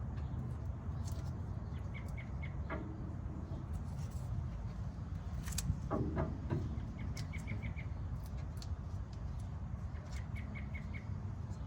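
A bird repeating a quick run of four or five high chirps every few seconds over a steady low rumble, with a few light clicks and knocks around the middle.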